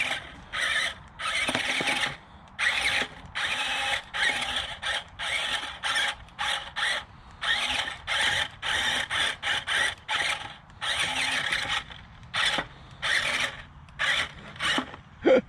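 Electric motors and plastic gearboxes of a JJRC Q137 8x8 RC skid steer whirring in short bursts, stopping and starting over a dozen times as it is driven.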